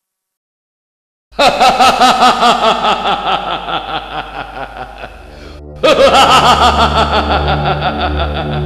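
A man laughing loudly in a demon-king villain's laugh: rapid 'ha-ha' pulses start about a second in and fade away, then a second loud round of laughter breaks out a little past halfway. A low pulsing drone comes in under the second round.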